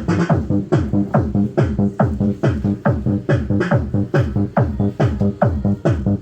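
Electronic dance music with a steady beat of heavy bass kicks that drop in pitch, about two a second, played loud through a sound-test speaker system.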